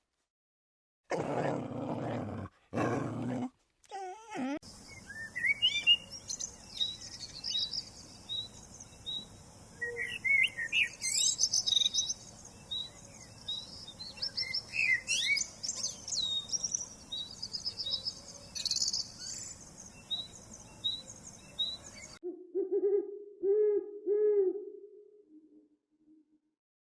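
Two short, loud animal sounds, then a long chorus of songbirds chirping and trilling, then an owl hooting a few times near the end.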